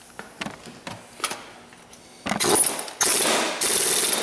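Impact wrench hammering the crankshaft balancer bolt tight on a 2.0 L Kia engine, in three short bursts starting a little over two seconds in. Before that, a few light clicks as the balancer and bolt are fitted by hand.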